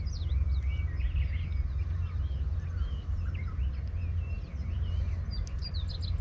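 Small birds chirping and twittering, many short calls overlapping, over a constant low rumble.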